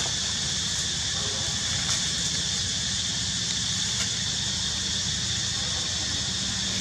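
Steady outdoor background hiss, a constant high drone over a low rumble, with a couple of faint ticks about two and four seconds in.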